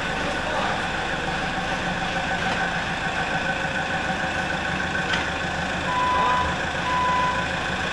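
Taylor forklift's engine running steadily as it creeps up to a steel plate, with two half-second beeps of its warning beeper about six and seven seconds in.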